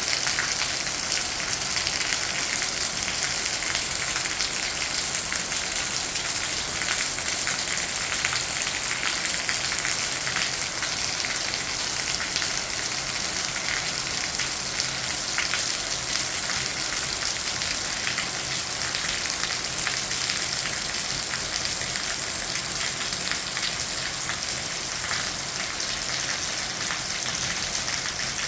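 Steady rain falling, a dense even patter of drops that keeps up without change.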